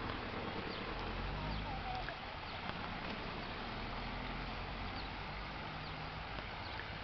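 Outdoor lakeside ambience while walking: a steady rush of noise, short high bird chirps about once a second, and footsteps on the grass path.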